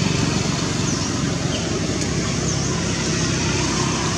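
Steady outdoor background noise, a low rumble under an even hiss, with a couple of brief faint high chirps.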